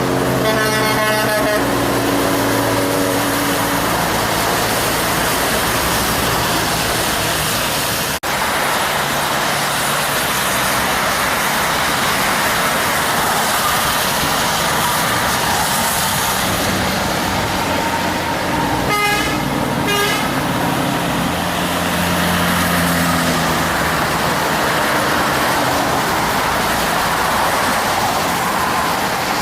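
Heavy trucks and road traffic passing at speed, with steady engine and tyre noise. A truck horn blows near the start, and another short horn sounds about two-thirds of the way through.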